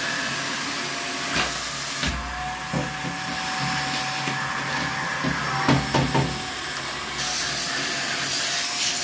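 INALSA Dura Clean handheld vacuum cleaner's 800-watt motor running with a steady hiss and whine, the whine stepping up slightly in pitch about two seconds in and dropping back about seven seconds in. Sharp clicks and rattles come through it as coins are sucked up the bare connector nozzle, the loudest about six seconds in.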